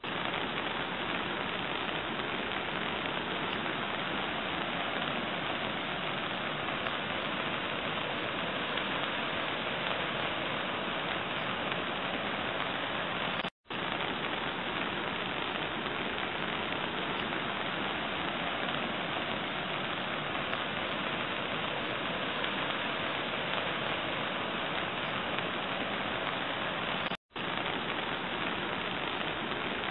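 Steady, even hiss of rain, broken by two brief silent gaps, one near the middle and one near the end.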